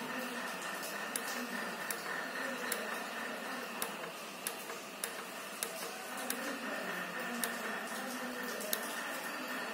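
Steady fan whir with a thin whine from a running Eltek 75 A rectifier power supply, with a sharp click roughly every second as its front-panel buttons are pressed.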